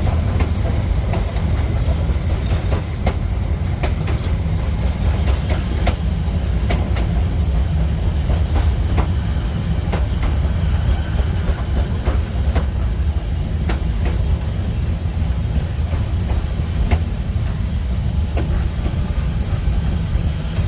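Metre-gauge steam train of locomotive 99 7240-7 running, with a steady heavy rumble, hissing steam and scattered clicks from the wheels and running gear.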